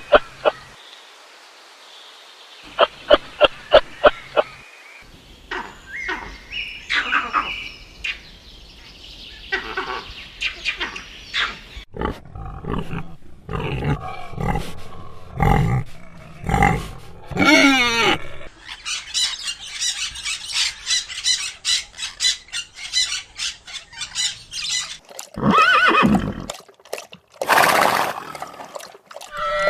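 A series of different animal calls, one kind after another with short gaps between them.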